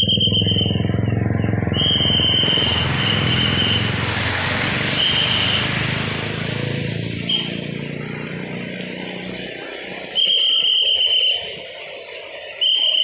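A traffic controller's whistle sounding in repeated blasts of about a second each, with one brief chirp among them. Motorcycle and car engines of passing traffic run underneath, fading away about two-thirds of the way through.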